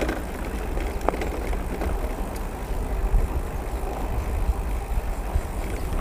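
Mountain bike rolling down a dirt track: steady tyre and ride noise with wind rumbling on the microphone, and a couple of sharp clicks from the bike, one about a second in.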